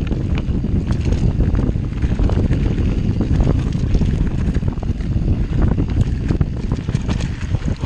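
Wind buffeting a handlebar-mounted action camera's microphone as a mountain bike rolls down a dirt forest trail, with frequent short clicks and rattles from the bike jolting over roots and bumps.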